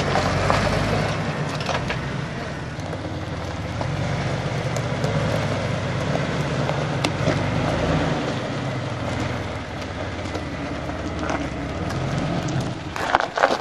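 Jeep Wrangler Rubicon's straight-six engine running steadily at low revs as it crawls over rock, a low drone that fades near the end.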